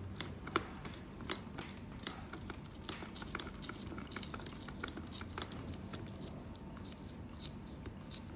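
Scattered small plastic clicks and taps from a hardened fiber optic fast connector being handled and pushed into an MST terminal box port.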